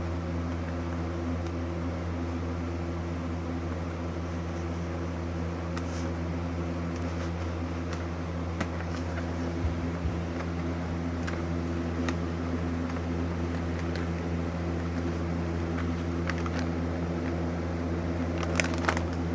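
Steady low mechanical hum, like a fan or appliance running, with a few scattered light clicks and handling noises from toy packaging being worked open, clustered most closely near the end.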